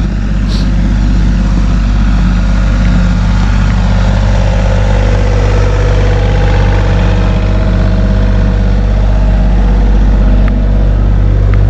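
Diesel engine of a John Deere 27D compact excavator idling steadily as it warms up.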